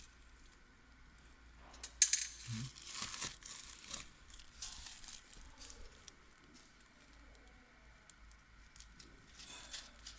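Irregular rustling and handling noises, with a sharp clatter about two seconds in and scattered smaller clicks.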